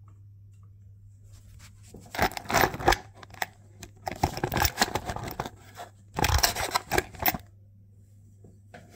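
Rustling and scraping handling noises come in irregular bursts starting about two seconds in, the loudest about six to seven seconds in, then quieten near the end.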